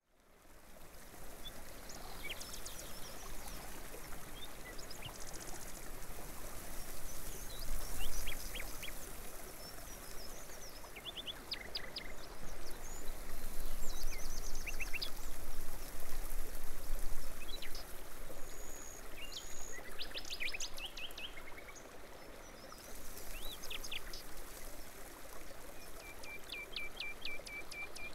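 Running water with birds chirping and trilling over it, fading in over the first second. Near the end one bird gives a quick run of evenly repeated notes.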